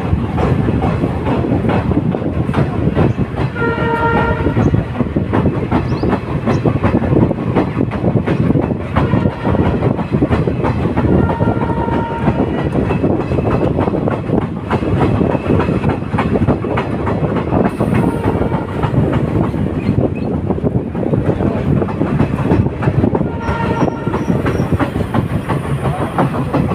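Passenger train rolling along at low speed, wheels clattering over rail joints under steady running noise, heard from an open coach doorway. A horn sounds briefly about four seconds in and again near the end.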